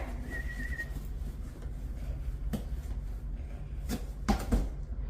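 A few light knocks and bumps over a low room hum: one about two and a half seconds in, then a short cluster near four seconds. This is a dog knocking a cardboard box about as it carries it.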